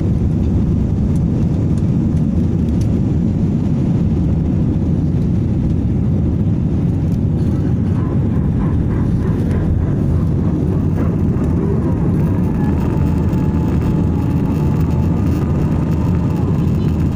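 Jet airliner's engines at takeoff thrust heard from inside the cabin, a loud steady rumble through the end of the takeoff run and the climb-out. From about two-thirds of the way in, faint whining tones join the rumble.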